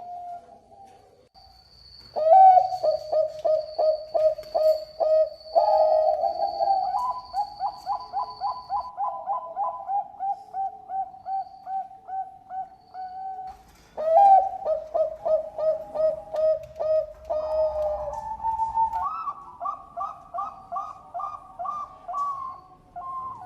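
Zebra dove (perkutut bangkok) singing: two long series of rapid, staccato coos. Each starts loud and runs on for about nine seconds, and the second steps up in pitch near its end.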